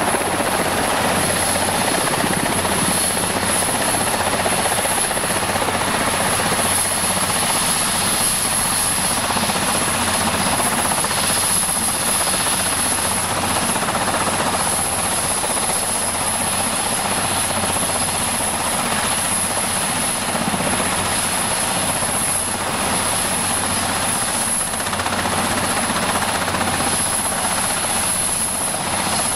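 Twin-turbine Westland Wessex helicopter running on the ground close by, rotors turning, with a steady loud blend of turbine and rotor noise that holds level throughout.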